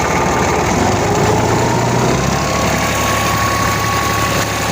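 Kubota tractor's diesel engine running, now starting and running after a hard-starting fault was dealt with by adjusting the valve clearances.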